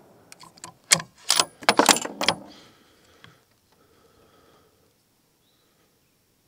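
Tikka T3x Tac A1 bolt-action rifle's bolt worked right after a shot: a quick run of sharp metallic clicks and clacks over about two seconds, then quiet handling.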